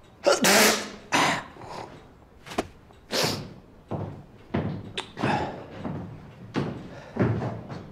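Wooden drawers and furniture being rummaged through: a run of irregular thuds and knocks mixed with swishing rustles of papers and cloth.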